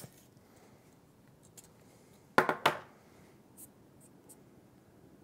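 Bicycle hand pump laid down on a wooden table: two sharp knocks about a third of a second apart, then a few faint handling clicks.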